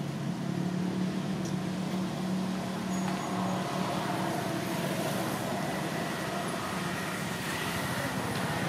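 Steady low drone with an even outdoor background hiss, and a faint high steady tone over it; no distinct events.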